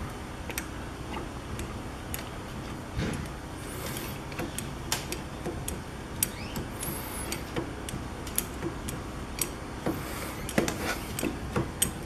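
Hydraulic floor jack's pump lever worked by hand, its pump linkage and piston giving short metallic clicks at an uneven pace, closer together near the end. The jack has just been refilled with hydraulic jack oil and is being pumped a few times to draw the fluid into the pump.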